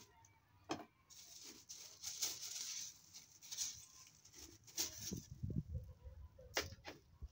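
Plastic bags and dry herbs rustling as they are handled, with a few sharp clicks and low bumps as containers are moved.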